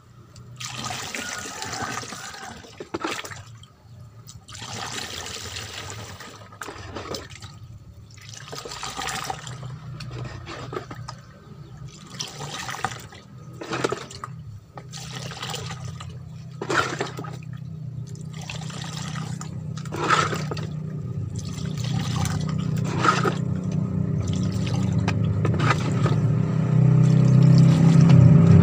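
Coconut water poured dipperful by dipperful from a plastic scoop through a metal funnel into a plastic jerry can, splashing and gurgling. The pours last a second or two each, with short gaps while the scoop is refilled. A low rumble grows louder toward the end.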